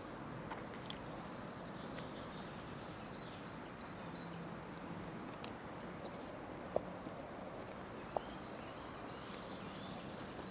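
Quiet outdoor ambience with faint birds chirping and a thin repeated high call, and two light clicks about seven and eight seconds in.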